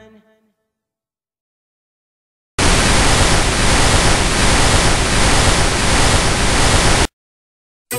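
A song ending fades out, and after a couple of seconds of dead silence comes analog TV static hiss: a loud, even noise that starts abruptly about two and a half seconds in and cuts off suddenly about a second before the end.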